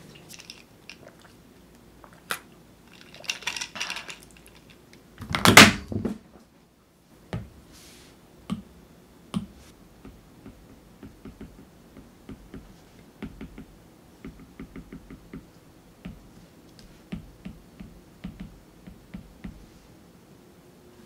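Apple Pencil tip tapping and scratching on an iPad's glass screen, in many small ticks. A couple of louder brief noises come in the first six seconds, the loudest about five and a half seconds in.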